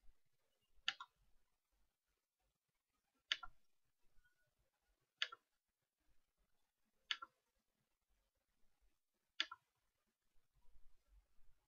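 Computer mouse clicking: five single clicks about two seconds apart, marking points frame by frame.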